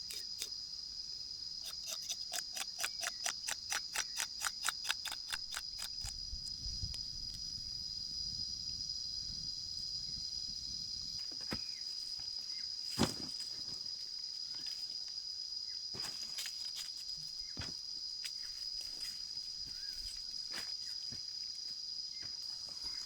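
Steady high-pitched chirring of insects in open countryside. About two seconds in there is a run of quick, evenly spaced clicks, roughly four a second, that stops about six seconds in. Near the middle there is a single sharp knock.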